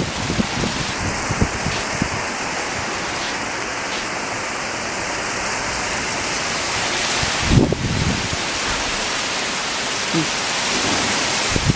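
Torrential rain pouring down, a steady, loud hiss of heavy downpour. A short low thump about seven and a half seconds in.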